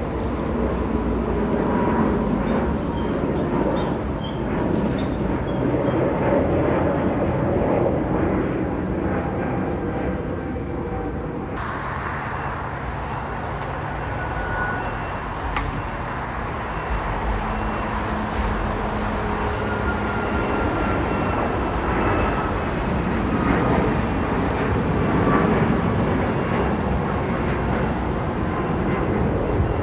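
Jet airliner engine noise: a steady rumble with a faint gliding whine.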